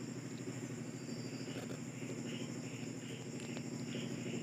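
Insect chirping in the background, a short high chirp repeating about three times a second from about a second in, over a low steady hum.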